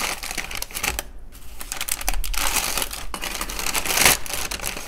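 Plastic packaging and bubble wrap crinkling and rustling as a package is unwrapped by hand, a dense run of crackles that is loudest about four seconds in.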